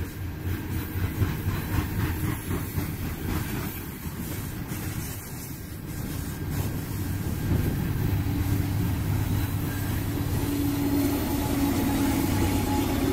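Loaded coal hopper cars rolling past on steel rails, followed by the rear distributed-power locomotive, a GE AC44CW diesel-electric, coming up with its diesel engine running steadily. The engine hum grows louder over the second half as the locomotive draws alongside.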